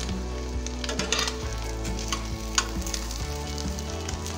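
Egg-dipped bread sizzling as it fries in mustard oil in a steel pan, with a metal spatula clicking against the pan a few times as it presses and lifts the toast.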